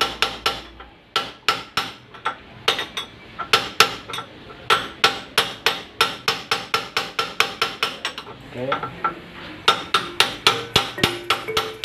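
Steel-on-steel tapping: a metal rod held against the steering-head adjusting nut of a Honda Vario 110 scooter is struck in quick runs of about four blows a second, each blow with a short metallic ring. The nut is being knocked round to tighten it and take the play (oblak) out of the steering head bearings.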